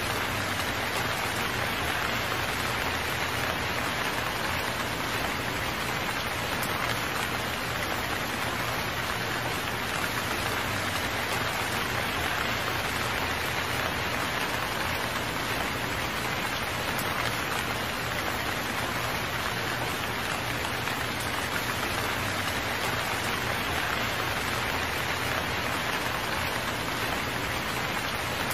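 Steady rain falling, an even hiss of drops that holds at one level throughout.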